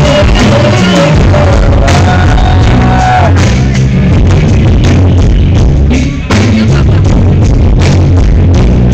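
Live band music from a concert, recorded on a phone close to full level, so it sounds bass-heavy and distorted. A voice holds long notes in the first few seconds.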